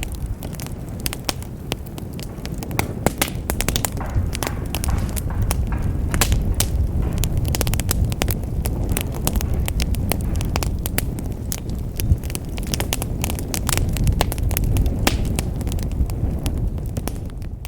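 Wood fire burning in a fireplace: a low steady rumble with frequent sharp crackles and pops of burning logs.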